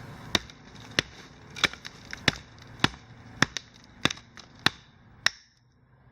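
Knife being batoned through a piece of wood: about nine sharp strikes on the blade's spine, roughly one every 0.6 seconds. The strikes stop a little after five seconds in.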